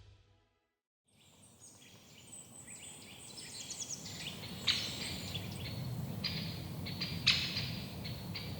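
Tropical forest ambience fading in after a moment of silence: many short, high-pitched bird chirps and calls repeating over a steady background hiss.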